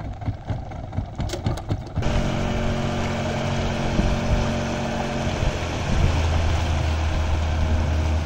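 A small boat's outboard motor starts about two seconds in and then runs steadily, driving the boat; its low note grows stronger about six seconds in as it speeds up.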